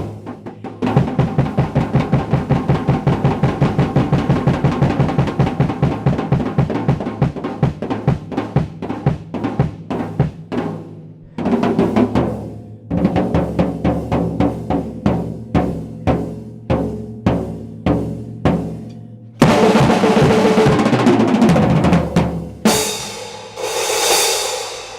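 Drum kit solo: a long fast roll of rapid even strokes, a brief pause, then slower separate hits. About twenty seconds in comes a loud ringing crash that sustains for a few seconds, and another rings out near the end.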